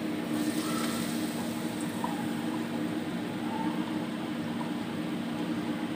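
Coated potato sticks deep-frying in hot oil in a wok, a steady sizzle and bubbling that grows brighter about a third of a second in as more pieces go into the oil. A steady low hum runs underneath.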